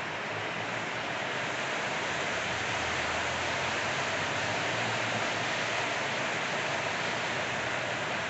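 Steady rain falling, an even hiss without separate drops standing out.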